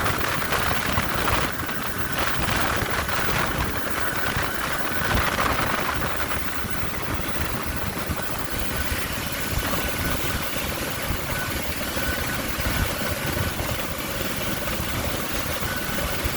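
Helicopter running steadily: a dense low rumble, with a faint high steady whine from about halfway through.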